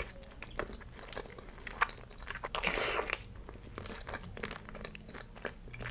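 Close-up eating sounds of a pear dessert: biting and chewing with small crunching clicks and wet mouth sounds, and a brief rustling hiss about halfway through.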